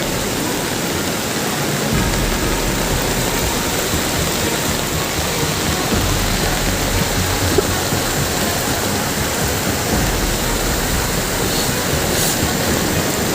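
Steady, loud rush of water during heavy rainfall, an even hiss with no distinct strokes or tones.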